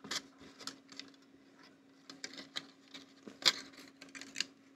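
Small clicks, taps and scrapes of a Sony PMW-F5 camera's side panel and circuit board being handled and lifted away from the camera body, with one louder click about three and a half seconds in.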